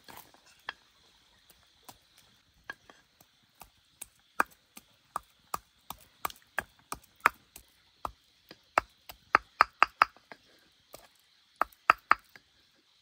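Repeated chopping: sharp, separate knocks, a few at first, then two to three a second, with a short pause near the end before a final quick few. A faint steady high hum runs underneath.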